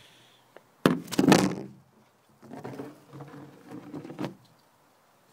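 Phone handling noise as the phone is set down: a loud knock and clatter about a second in, then quieter scraping and rattling.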